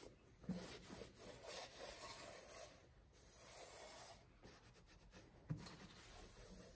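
Cloth shop rag rubbing and wiping across the machined deck and cylinder bores of a Slant Six engine block, cleaning it before the cylinder head goes on. Two brief knocks stand out, about half a second in and a second before the end.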